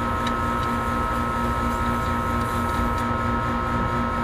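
Steady running of an electric motor-driven machine: a low rumble under a high, even whine, with a mid-pitched tone that pulses regularly.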